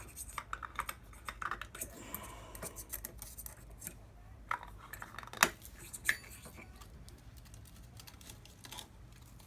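Light clicks and taps of plastic on metal as a cut polystyrene disc is knocked out of a hole saw, with one sharper click about five and a half seconds in.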